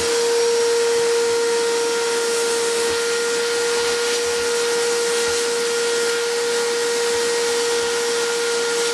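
Vacuum cleaner running at a steady pitch with a rushing hiss of air, sucking dust out of a dirty dehumidifier filter.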